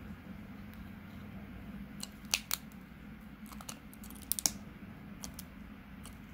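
Bosc monitor lizard biting a giant African land snail's hard shell: a series of sharp clicks and cracks in small clusters, starting about two seconds in, as its jaws and teeth grip and work on the shell.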